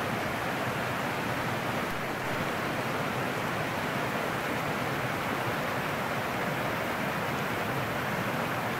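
Woodland stream rushing and splashing over rocks and fallen logs, a steady rush of water.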